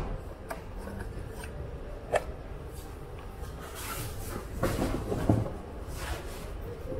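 Hand work on a motorcycle hydraulic brake caliper: a few sharp clicks of small metal parts about half a second and two seconds in, then a run of knocks and rubbing between about four and five and a half seconds.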